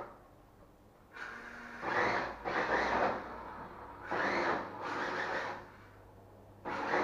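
Toy 1:10 Mondo Motors Porsche 918 Spyder RC car whirring in about six short bursts of half a second to a second each, with quiet gaps between them, as it is driven across a wooden floor.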